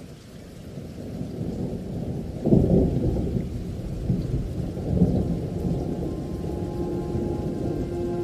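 Thunder rumbling over a faint hiss of rain. It starts suddenly, swells to its loudest about two and a half seconds in and rolls again around five seconds. Held musical tones begin to come in near the end.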